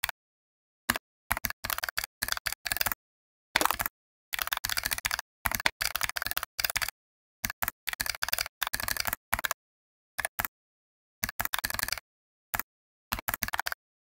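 Computer keyboard typing: quick runs of key clicks in bursts of a word or two, separated by short pauses of dead silence.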